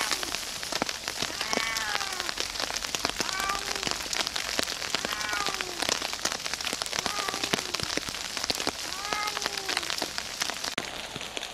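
Heavy rain pattering on leaves, with a stray cat meowing repeatedly, about every two seconds, each meow rising and then falling in pitch.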